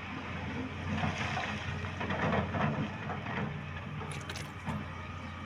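Tata Hitachi Zaxis 370 LCH excavator's diesel engine running steadily with a low drone, with a few sharp clatters about four seconds in.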